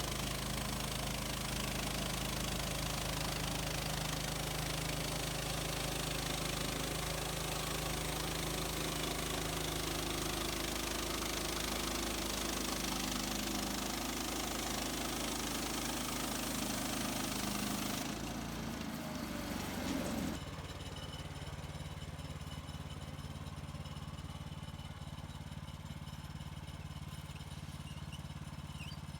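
Portable bandsaw mill's gas engine running hard with a dense rushing noise over it. About 18 seconds in the noise drops away, the engine's pitch falls, and it settles to a steadier, quieter idle.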